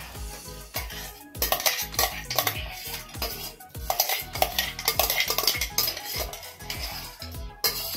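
A steel spoon scraping and clinking against the inside of a stainless-steel mixer jar, with repeated irregular clinks, as coarsely ground bathua leaves are scraped out of it.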